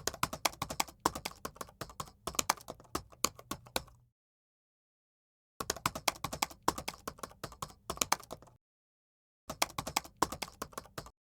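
Computer keyboard typing: three runs of quick key clicks, separated by gaps of dead silence.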